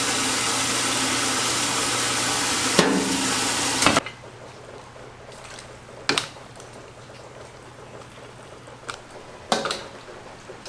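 Steady loud rushing hiss of a busy commercial kitchen, with a couple of knocks, that cuts off abruptly about four seconds in. Then quieter kitchen noise with a few sharp metallic clanks of a ladle and stainless bowls against a wok as noodle soup is dished up.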